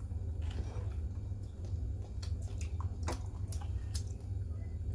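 Person chewing and eating, with a handful of short wet clicks and smacks over a steady low hum.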